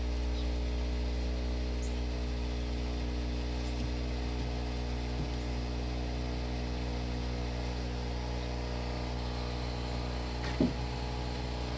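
Mr Cool 4-5 ton inverter heat pump outdoor unit humming steadily in reverse-cycle defrost mode, melting ice off its coil. A single short knock near the end.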